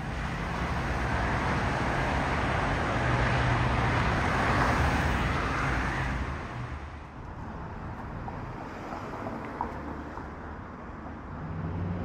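Steady rush of dense freeway traffic, tyres and engines blending into one continuous noise. It grows louder over the first few seconds, then drops to a lower, steady level at about seven seconds.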